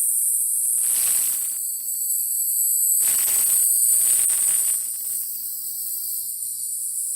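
High-pitched electrical whine from the Antec NEO ECO 520C ATX power supply, the abnormal shrieking noise it has developed. Two bursts of hissing noise cut in, one about a second in and a longer one about three seconds in.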